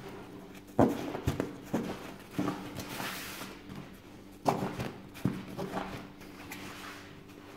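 A sleeping bag's compression sack being opened by hand: the fabric rustles and the webbing straps and plastic buckles give several sharp clicks and snaps as the straps are loosened.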